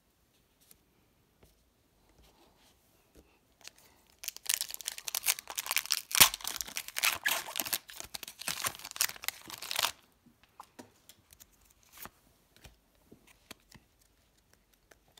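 Foil Pokémon booster-pack wrapper being torn open and crinkled: a dense crackling from about four seconds in that stops abruptly at about ten seconds. After it come a few faint ticks as the cards are handled.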